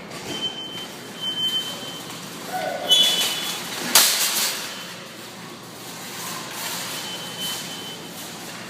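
Reversing beeper of a motorized shopping cart, a high steady beep sounding on and off. A single sharp clatter about four seconds in.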